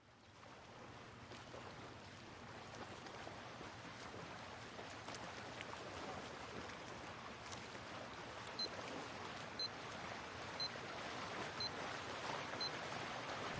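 Water and waves sea ambience, a steady hiss of water that fades in and slowly grows louder. In the second half come five short high beeps, one a second.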